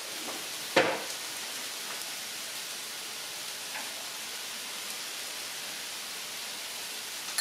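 Steady hiss of food cooking in a pan on the stovetop, with one sharp clack about a second in.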